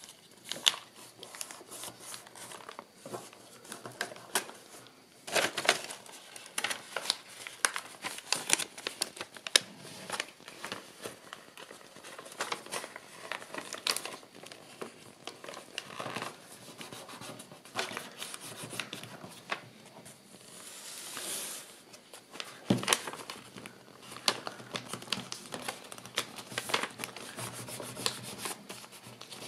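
Craft paper crinkling and rustling as it is folded and creased by hand around a paperboard slipcase, with irregular small clicks and scrapes and one dull knock about three quarters in.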